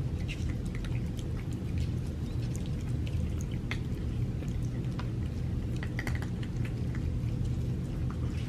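Cats chewing and licking soft raw meat, a scatter of small wet clicks and smacks, over a steady low rumble.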